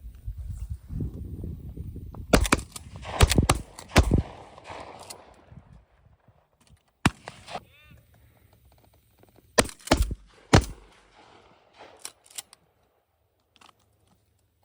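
Shotguns firing at passing doves: a quick string of three loud shots, a lone fainter shot, then two more loud shots close together, with a couple of faint distant pops near the end. Each shot echoes briefly.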